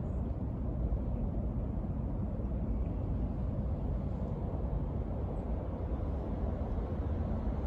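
Wind buffeting the microphone outdoors: a steady, even low rumble with no distinct events.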